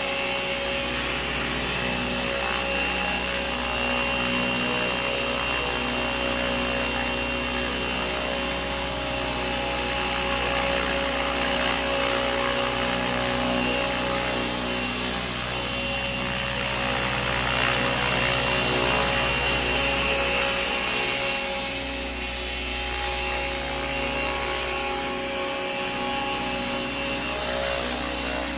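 Radio-controlled Align T-Rex 600 helicopter in a Eurocopter EC145 scale body, flying: a steady, many-toned whine of the motor and gears over the rotor noise, easing slightly a little after two-thirds of the way in.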